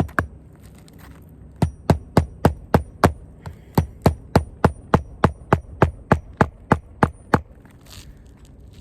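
Hammer driving nails into asphalt roof shingles: a steady run of about twenty sharp strikes, roughly three a second, with a short pause about three seconds in.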